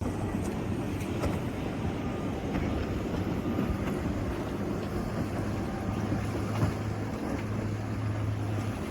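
Steady low drone of a boat engine over a rush of wind and water.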